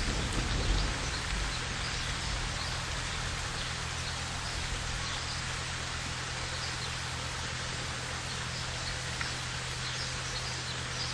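Steady rain hiss as the last of a thunder rumble dies away in the first second, with faint high chirps scattered through it.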